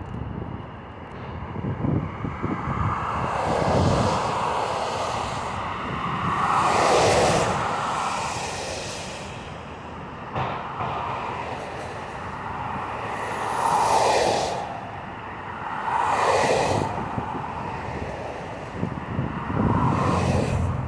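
Road traffic whooshing past close by, about five vehicles one after another, each swelling up and fading away over a second or two, over a steady rumble.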